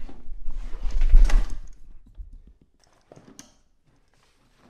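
Rustling, bumping and scraping of a packed waterproof dry bag being forced into a jet ski's storage compartment, with a low handling rumble from the hand-held camera about a second in. After that it goes quieter, with a few light clicks around three seconds in.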